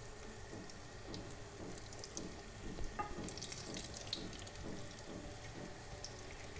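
Dough rounds quietly sizzling and crackling in shallow oil in a frying pan, with a metal fork clinking once against the pan about three seconds in as the pieces are turned.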